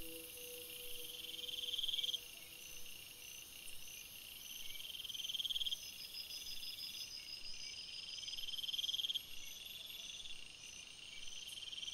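Chorus of calling insects and frogs: a rasping trill that swells for about a second and a half and cuts off, repeating every three to four seconds, over steady rows of quick high chirps.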